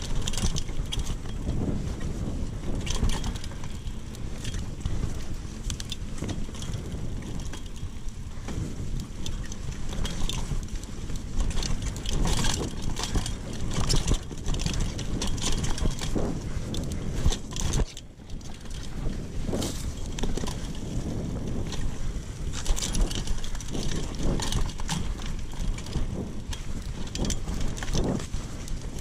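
Mountain bike ridden along a dirt trail: a steady low rumble of tyres and wind on the microphone, with frequent rattles and clicks from the bike over bumps. The sound drops briefly about eighteen seconds in.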